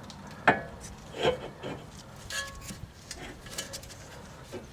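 Scattered clinks and knocks of metal tools and suspension parts being handled, about half a dozen, one a little over two seconds in leaving a short metallic ring.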